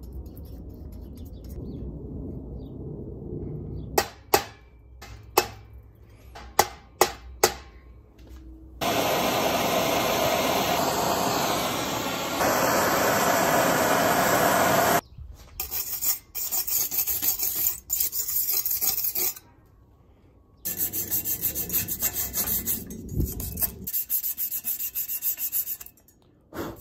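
Brazing eyelet braze-ons onto a steel bike frame tube: several sharp clicks, then a steady torch hiss for about six seconds. After that come bouts of quick, rhythmic filing strokes on the metal, smoothing the brazed joints.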